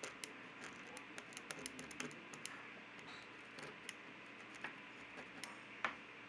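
Pen tip ticking and scratching on paper while drawing small shapes: a run of quick, light clicks that thin out after about three seconds, over a faint steady hiss.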